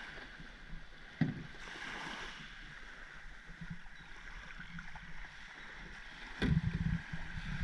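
Shallow water splashing and small waves washing on a sandy beach as a dinghy is walked out through the shallows. A low thump comes about a second in, and a sharper knock near the end is followed by low rumbling thumps.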